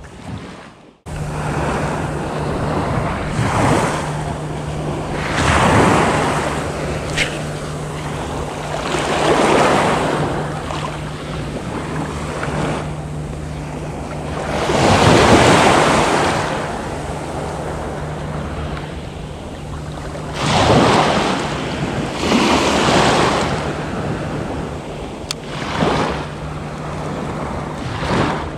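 Small waves breaking and washing up a pebble beach, swelling every few seconds, with a steady low hum underneath.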